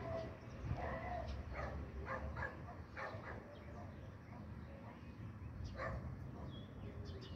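A dog barking, faint: a run of short barks in the first three seconds and a couple more near six seconds, over a low steady background rumble.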